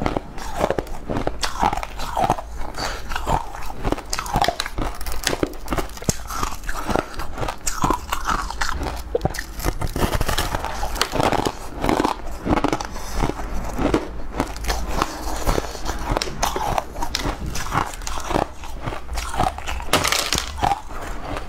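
Close-miked crunching and chewing as a person bites off and chews pieces of a brittle blue crystalline sweet slab, with sharp, crackling crunches close together.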